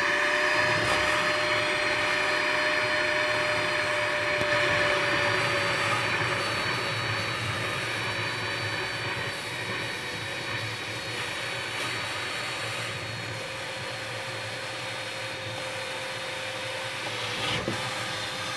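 Wet/dry shop vac running steadily, its hose sucking water and debris out of the bottom of a sump pit. The motor's whine holds one pitch throughout, sagging slightly partway through.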